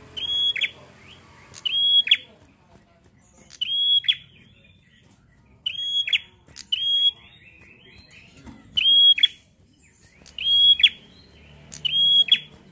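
Prenjak singing loudly: a call repeated about every one and a half to two seconds, each one a high held note that drops sharply. A short chattering trill follows some of the calls.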